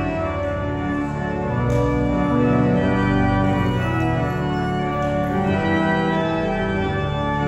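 Organ playing slow, sustained chords of a hymn.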